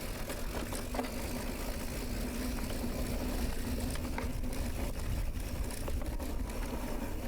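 Mountain bike riding over a dirt trail: steady rumble and rattle picked up by the bike- or body-mounted camera, with scattered small clicks and a steady low hum.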